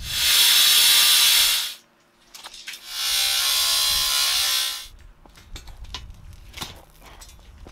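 Handheld power tool cutting through steel rebar: two steady bursts of about two seconds each, a hissing whine with a gap between them, then a few light clicks and clinks of the bar.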